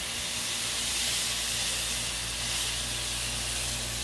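Smashed beef burger patties sizzling steadily on a hot Blackstone flat-top griddle.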